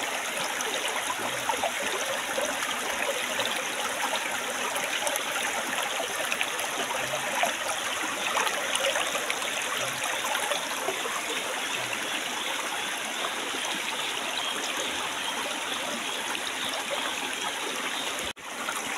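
Shallow rocky stream running over and around stones, a steady babble of flowing water that briefly cuts out near the end.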